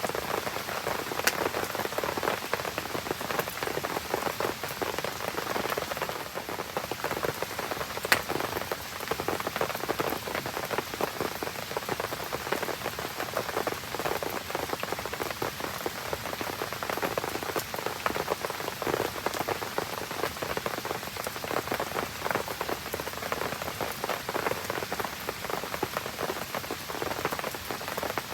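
Steady rain pattering on surfaces, a dense hiss of many small drops. A single sharp snap stands out about eight seconds in.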